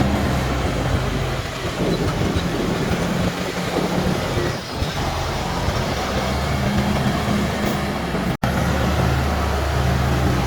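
Heavy diesel earth-moving machinery running: a steady low engine drone over a broad rumble. The sound cuts out for an instant a little past eight seconds.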